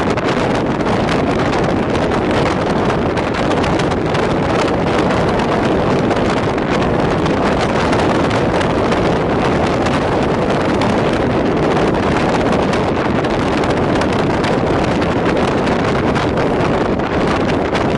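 Steady rush of wind buffeting the microphone over the running noise of a moving passenger train.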